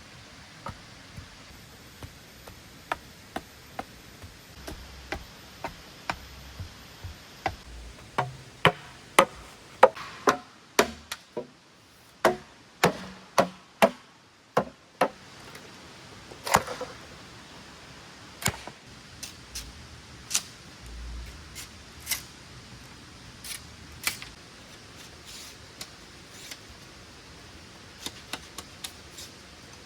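A series of sharp chopping and knocking strikes from a hand tool working wood. The strikes are irregular, with a run of harder blows about two a second in the middle and lighter, sparser knocks after it.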